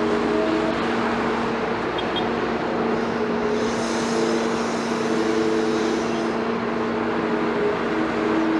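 Liebherr 946 excavator's diesel engine running steadily, with a hiss joining it for about three seconds midway.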